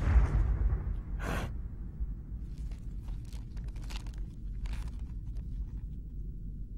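Animated-film sound effects: the tail of a crash dying away, a short noisy scrape about a second in, then scattered small clicks and crackles over a low steady rumble.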